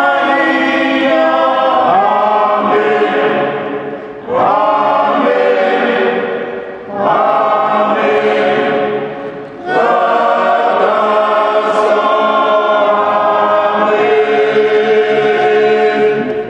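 A choir singing a hymn in long held phrases, with short dips between phrases about four, seven and ten seconds in.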